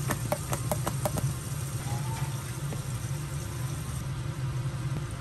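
Knife shredding cabbage on a cutting board in quick, even strokes, about five or six a second, stopping about a second in. A steady low hum with a light hiss follows.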